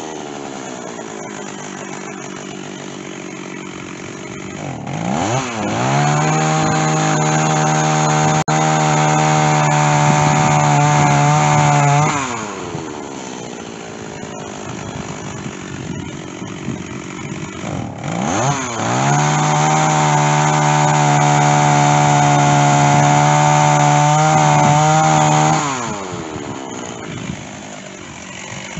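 Stihl chainsaw idling, then run at full throttle twice for about six to seven seconds each, dropping back to idle between and after, as it cuts through white oak with a dull chain.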